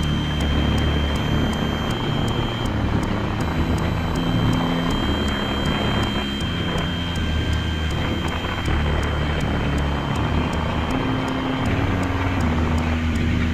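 Improvised electronic noise music from a software synthesizer: a dense, hissing noise wash over low sustained droning notes that shift every second or so, with a thin, steady high tone on top.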